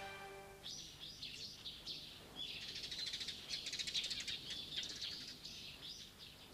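Small birds chirping and twittering in many short, quick calls. The last held note of the theme music fades out in the first half second.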